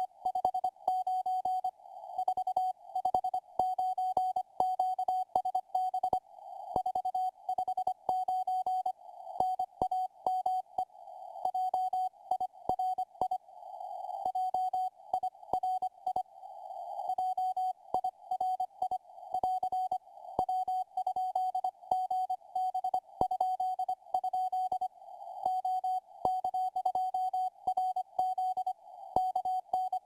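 Morse code (CW) signal received by a software-defined radio: a single tone near 700 Hz keyed on and off in dots and dashes at about 11 to 19 words per minute. There are faint clicks as the tone keys, and a few brief patches of static.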